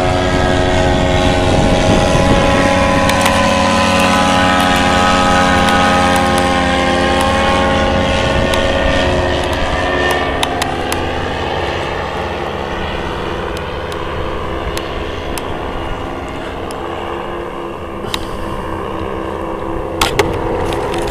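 Paramotor's engine and propeller droning as the powered paraglider flies past overhead; the pitch falls from about eight seconds in, and the sound fades as it moves away. A few clicks near the end.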